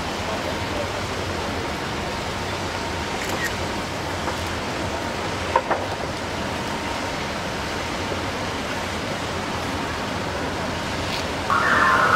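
Steady splashing of a stream of water pouring from an outlet in a destroyer's hull into the harbour. A louder burst of rushing noise comes near the end.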